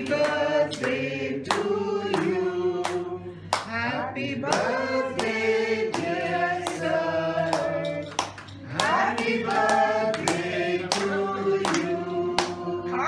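A small group of people singing a birthday song together, with hands clapping along in time.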